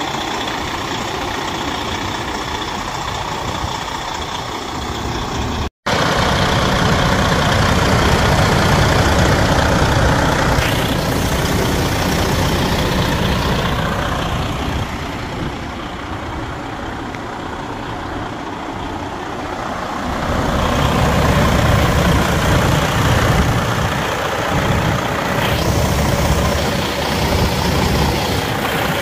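Semi-truck diesel engine idling steadily, a low rumble that swells and eases in level, with a brief cut-out about six seconds in.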